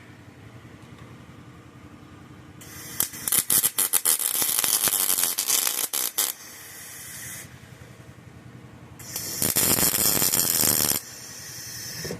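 Welder laying tack welds on sheet-metal bodywork: two bursts of arc crackle, the first stuttering on and off for about three seconds, the second steadier and about two seconds long near the end. A steady low hum runs underneath.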